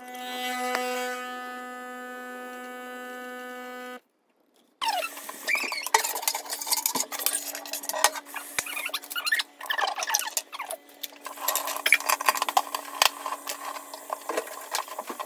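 A steady electric hum for about four seconds that stops abruptly. After a short gap comes a busy run of clinking and rattling, like a spoon and dishes knocking together, over a lower steady hum.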